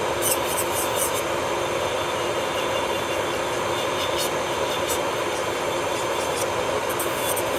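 Electric nail drill running steadily with a bit working on a fingernail: a constant whirring hum with short, scratchy ticks of the bit against the nail.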